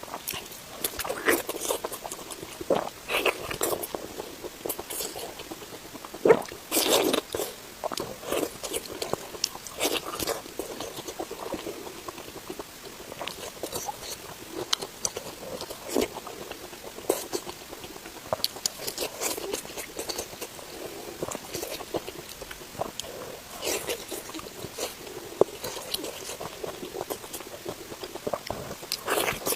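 Close-miked eating sounds: a person chewing and biting into spicy pork belly, with irregular wet mouth clicks and crunches throughout, thickest about six seconds in.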